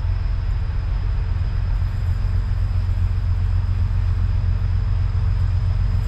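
A train running past with a steady, loud low rumble.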